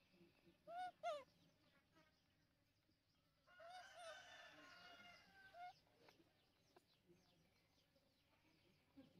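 A faint rooster crowing once, a long call of about two seconds that starts roughly a third of the way in. Two short rising-and-falling calls come just before it, near the start.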